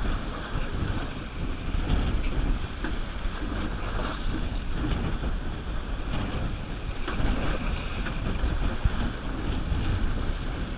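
Wind buffeting the microphone over choppy sea water slapping and splashing against the side of a boat, a steady rumbling wash of noise.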